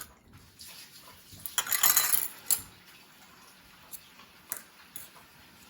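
Kitchen utensils on a pancake griddle: one louder scraping clatter about two seconds in, then a few light clinks.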